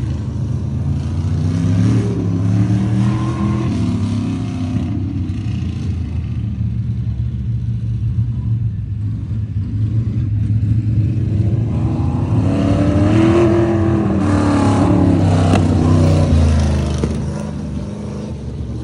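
Winged sprint car's V8 engine running hard around a dirt oval, its pitch climbing and dropping as the driver gets on and off the throttle through the turns. It grows loud twice, most of all as the car comes by about two-thirds of the way through, and is quieter in between while the car is on the far side of the track.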